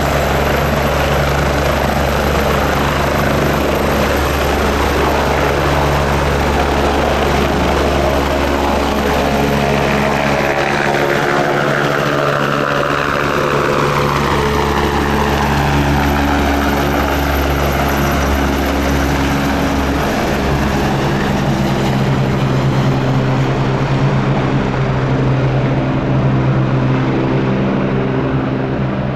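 AgustaWestland AW109 twin-turbine helicopter lifting off and climbing away, with steady rotor and turbine noise. Its high turbine whine falls in pitch over about ten seconds from roughly halfway through, as it passes and heads off.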